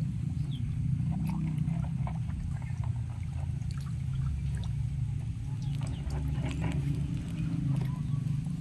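Water splashing and sloshing in a shallow muddy channel as large catfish move and break the surface, with many small scattered splashes over a steady low rumble.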